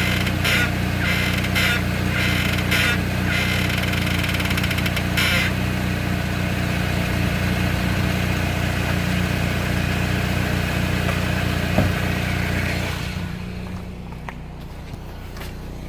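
Front left brake of a 2003 Saab 9-3 making a rhythmic noise in short pulses, about two a second, as the car moves. The pulses run together into one longer stretch and stop about five seconds in. The car's low running hum goes on under it and drops off near the end. The cause is unknown to the owner.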